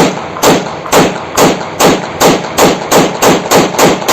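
Glock 19 9mm pistol fired in a steady string of about a dozen shots, roughly two a second at first and quickening to about three a second near the end, as the 14-round magazine is emptied.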